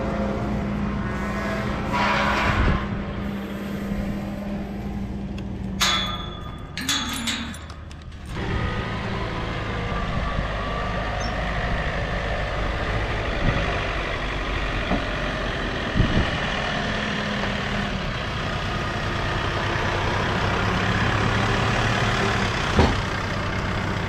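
John Deere utility tractor's diesel engine running steadily, with a brief burst of rattling about six seconds in.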